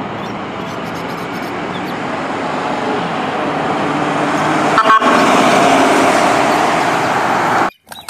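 Ford ambulance on an emergency run, its engine and road noise growing louder as it approaches, with steady horn tones over it. The sound cuts off suddenly near the end.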